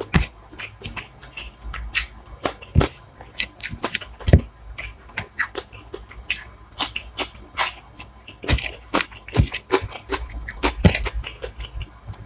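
Close-miked eating of hilsa fish biryani: wet chewing, lip smacks and mouth clicks, irregular and several a second.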